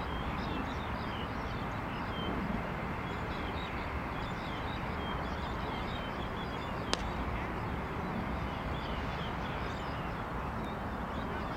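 Open-air ambience: a steady hiss and rumble with small birds chirping throughout, and one sharp crack about seven seconds in.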